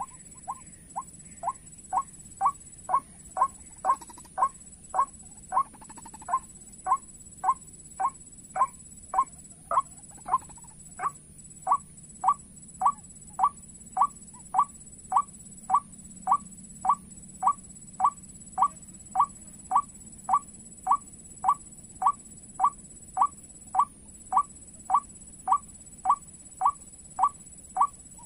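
White-breasted waterhen call repeated over and over at an even pace, short notes about two a second, played as a lure to draw waterhens into the snares.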